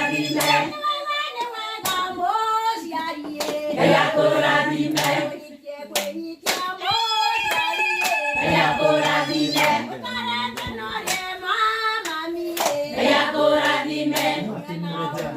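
A group of voices, women and children among them, singing a song together, with steady hand-clapping about once every 0.7 s; the singing pauses briefly about five seconds in.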